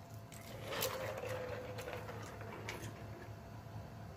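A person chewing food with soft, wet mouth clicks and smacks.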